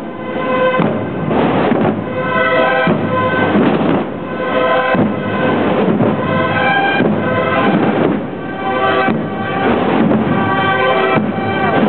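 Procession band playing a march: a brass melody over drumbeats.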